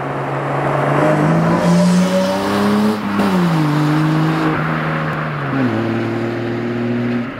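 BMW E30's engine running hard under acceleration: its pitch climbs for the first three seconds, then falls in steps about three seconds in and again near the end, as with gear changes.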